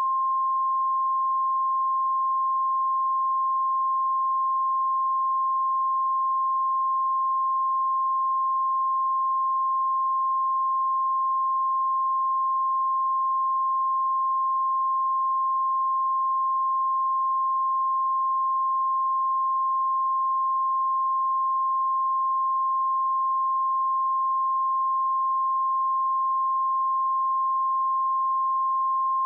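A pure 1058 Hz sine-wave test tone, one steady unbroken pitch at constant loudness.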